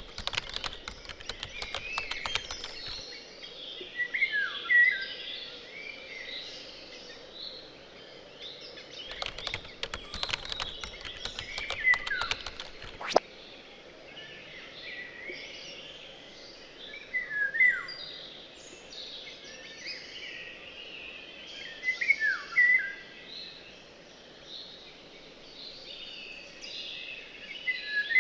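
A chorus of birds chirping, with one louder call that drops in pitch coming again every five seconds or so. Near the start and again from about nine to thirteen seconds in, a patter of sharp clicks sounds over the birds.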